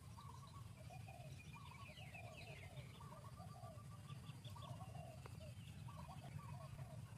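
Faint bird calls: a steady run of short repeated notes, several a second, with a few higher chirps, over a low steady background rumble.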